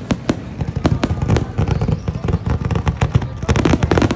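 Aerial fireworks shells bursting over a lake, the bangs coming faster and faster until they run together into a rapid, near-continuous barrage near the end.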